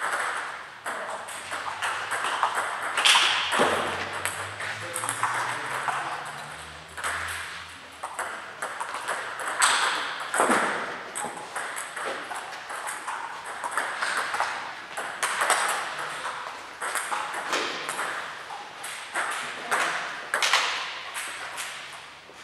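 Table tennis ball clicking back and forth between the table and the rubber-covered bats during rallies, with more ball clicks from neighbouring tables, echoing in a large sports hall.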